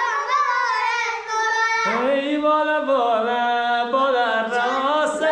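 A voice singing a slow melodic line with long held, wavering notes that glide between pitches.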